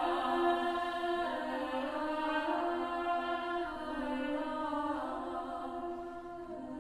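Outro music: voices singing a slow choral chant in long held notes that shift every second or two, slowly growing quieter.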